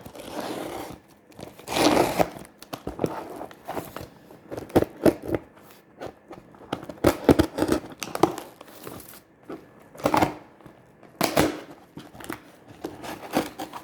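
Scissors cutting and packing tape tearing as a cardboard shipping box is opened, with crinkling of packaging, in irregular rasps and clicks.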